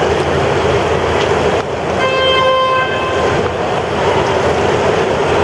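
Loud steady rushing noise, with a single horn blast lasting just under a second about two seconds in.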